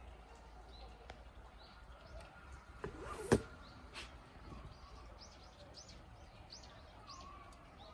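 Small birds chirping, a series of short arching high calls through the second half, over a faint steady background. A single sharp click or clatter sounds a little over three seconds in.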